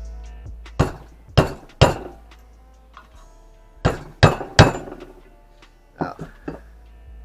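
Hammer tapping a deep socket to seat a press-fit part into a KA24DE cylinder head: three sharp metallic strikes, three more about two seconds later, then two lighter taps near the end. Background music plays throughout.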